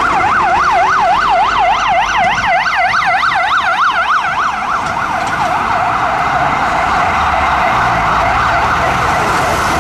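Ambulance electronic siren sounding a fast yelp, a rapid up-and-down wail of about three sweeps a second. About halfway through it switches to a much faster, rattling warble. Traffic rumbles underneath.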